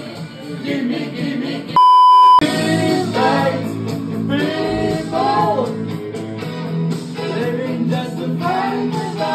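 Music with singing voices. About two seconds in, a loud steady beep, like a censor bleep, blanks out everything else for about half a second.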